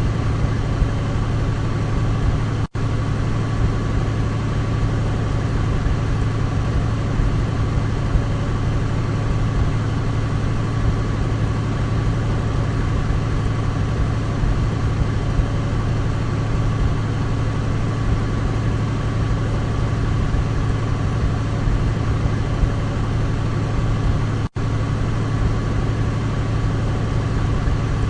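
Douglas DC-3's twin radial piston engines running as a steady, deep drone with a faint steady whine above it. The sound cuts out for an instant twice, once about three seconds in and once near the end.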